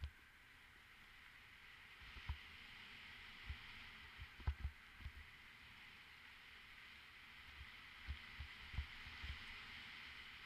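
Mountain bike riding downhill, heard through a helmet-mounted camera: a steady hiss of wind and tyre noise with scattered low thumps as the bike jolts over bumps, the hardest about halfway through.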